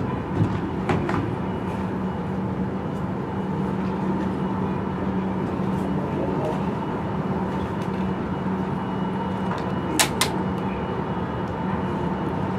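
Boeing 777-200ER's twin turbofan engines at taxi idle: a steady hum with a faint high whine. A few sharp clicks break in, two of them close together about ten seconds in.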